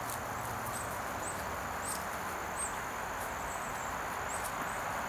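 Outdoor ambience: a steady background hiss with insects calling, a thin high drone under a short high chirp that repeats every half second or so.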